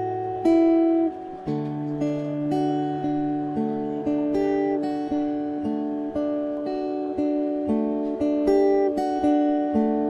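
Background music: a fingerstyle acoustic guitar plucking a slow melody over bass notes, each note ringing and fading.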